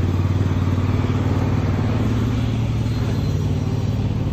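A motor vehicle engine idling close by, a steady low-pitched running sound that does not change.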